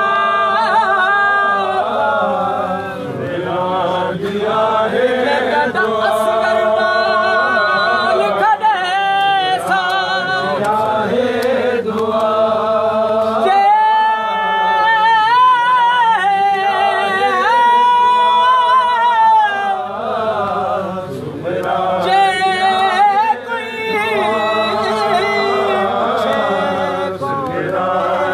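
Voices chanting a Sindhi noha, a Shia mourning lament, in a slow wavering melody. Several long held notes with a strong waver come in the middle.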